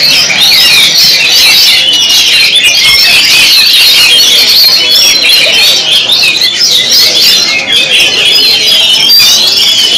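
Many caged songbirds singing at once in a dense, continuous chorus of overlapping high chirps, trills and whistles.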